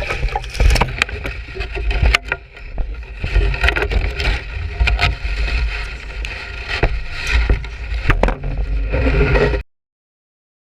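Wind buffeting the microphone with a heavy rumble aboard a small fishing boat, with scattered knocks and clatter from on board. The sound cuts off suddenly near the end.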